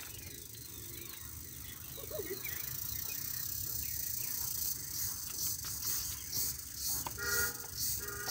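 High chirring of insects that turns into a pulsing rhythm of about two or three pulses a second about halfway in. Near the end come two short toots that sound like a horn.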